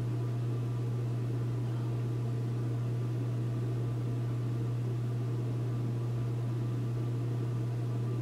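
Steady low hum with an even background hiss and no other sound: constant room or equipment noise picked up by the recording.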